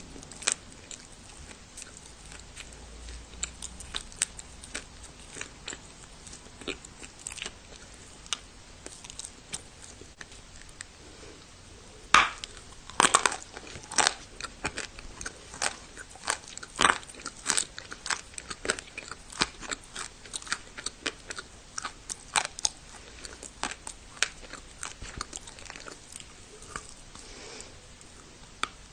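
Close-miked biting and chewing of dry clay pieces, turbah prayer-tablet clay: a run of sharp crunches and crackles. The loudest, densest bites come between about twelve and seventeen seconds in.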